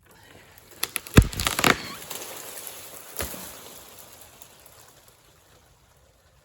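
A cut tree falling: a burst of sharp cracks and snaps about a second in, a rush of branches and leaves tearing through the brush, and a heavy thud a few seconds in as it hits the ground, then the rustling dies away.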